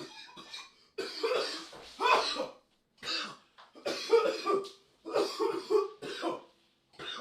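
A person's nasty coughing fit: a run of about seven harsh coughs, roughly one a second.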